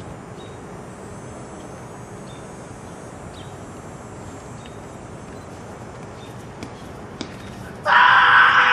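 Steady open-air background noise while a hammer thrower spins, then near the end a sudden loud shout lasting about a second that drops in pitch as it ends.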